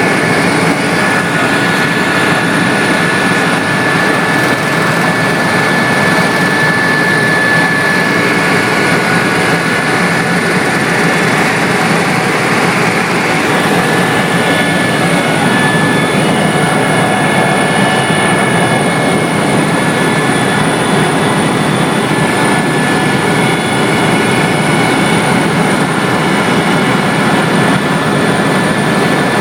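Helicopter in flight, heard from on board: steady, loud engine and rotor noise with a constant high whine.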